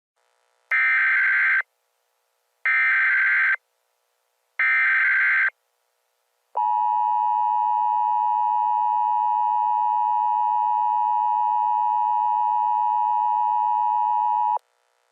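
Emergency Alert System header and attention signal: three short bursts of buzzing SAME data tones, each just under a second and about two seconds apart, then the steady two-tone attention signal held for about eight seconds before it cuts off. This is the opening of a new alert.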